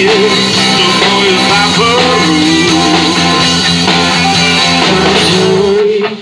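Live rock band playing loudly: drum kit and electric guitar under a lead singer's voice. Near the end the band cuts out, leaving the voice almost alone.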